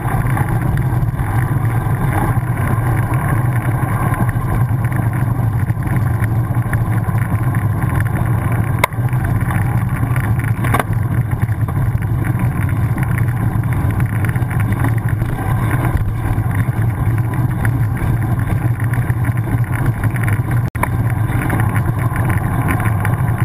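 Steady low rumble and wind noise of a road bike rolling along tarmac, heard through a camera mounted under the frame: tyre and road vibration with wind on the microphone. Two brief knocks, about nine and eleven seconds in, as the wheel goes over bumps.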